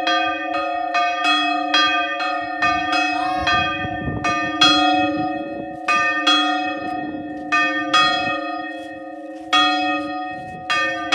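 Church bell rung by hand, struck again and again with its hum ringing on between strokes. The strokes come about twice a second at first, then slow to uneven strokes a second or more apart from about four seconds in.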